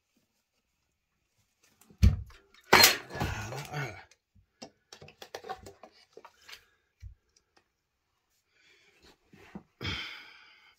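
Handling noises: a sharp thump about two seconds in, then a longer burst of clatter and rustle, scattered light clicks, and a short rustle near the end.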